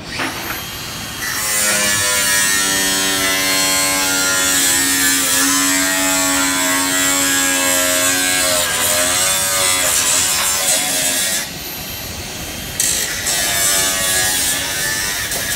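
Handheld angle grinder cutting into a steel countertop: a loud, high whine over a hiss of metal being cut. It gets louder about a second in as the disc bites, its pitch dips under load around nine seconds in, and it eases off briefly about twelve seconds in before cutting resumes.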